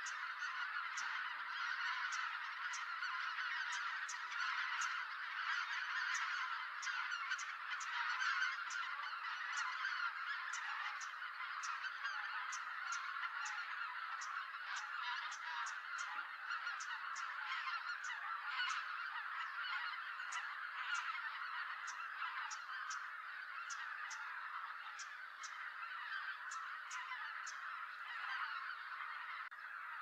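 A large flock of greater white-fronted geese calling without a break, many honks overlapping into a continuous clamour, as the geese come in to roost.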